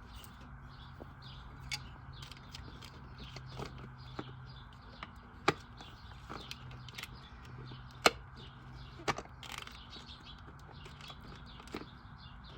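Scattered sharp clicks and knocks of parts and tools being worked in a truck's engine bay during a PCV valve and hose replacement. The loudest knocks come about five and eight seconds in, over faint bird chirps.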